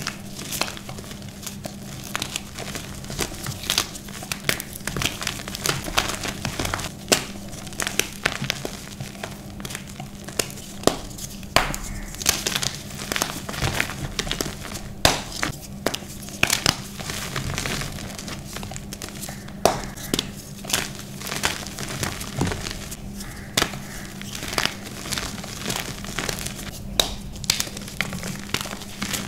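Hands squeezing and crumbling reformed blocks of dyed powder (Holi colour and gym chalk). Dry crunchy crackles and snaps come in quick, irregular succession over a soft powdery hiss, with a faint steady hum underneath.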